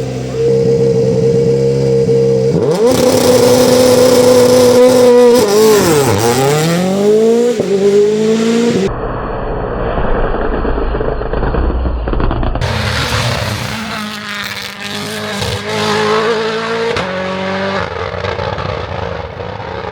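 Turbocharged four-cylinder rally car engines revving hard. The pitch holds high, drops sharply and climbs back. About nine seconds in, the sound switches abruptly to a dull rumble for a few seconds, then goes back to engines revving up and down.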